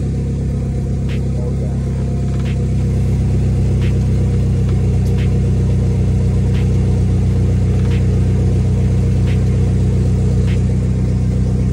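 Dodge Neon SRT-4's turbocharged 2.4-litre four-cylinder idling steadily, with a faint regular tick about every second and a half.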